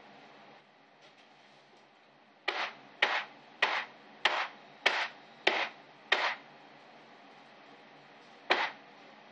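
A mold of freshly poured cold process soap batter being banged down hard on a table to settle the batter and knock out air bubbles: seven sharp knocks a little under two a second, then one more a couple of seconds later.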